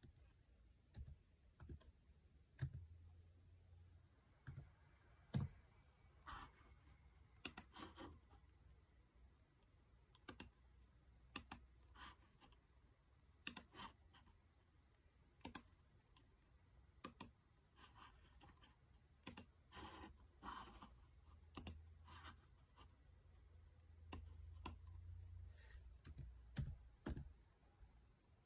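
Faint, irregular clicks and key taps from working a laptop's keyboard and pointer, some in quick pairs like double-clicks.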